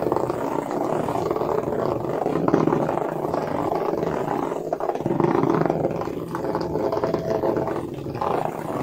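HEXBUG Nano Flash buzzing and rattling on a plastic track, driven along by its small vibration motor.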